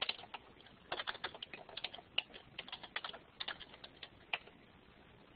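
Typing on a computer keyboard: quick, irregular keystrokes in short runs that stop a little over four seconds in.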